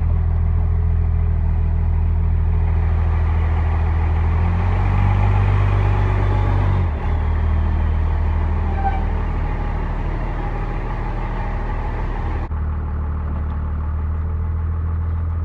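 12-valve Cummins 5.9 L inline-six turbo-diesel running steadily while warming up after a start. The pitch rises slightly about five seconds in, dips briefly about seven seconds in, then settles. The sound changes suddenly near the end, losing its upper hiss.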